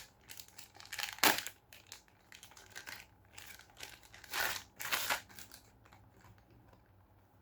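Packaging crinkling and tearing as an item is unwrapped by hand, in irregular rustling bursts: one sharp burst about a second in, a louder stretch around four to five seconds in, then dying away.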